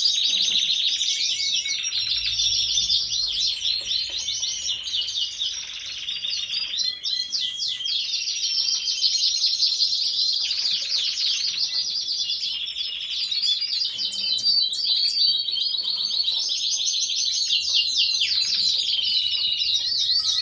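Gloster canaries singing: a continuous song of fast rolling trills and chirps.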